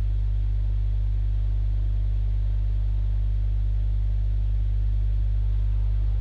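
A pair of Audiomobile EVO 10-inch shallow-mount subwoofers in an under-seat box plays a steady 100 Hz test tone at about 125 dB, heard inside the truck cab. The tone holds at an even level throughout.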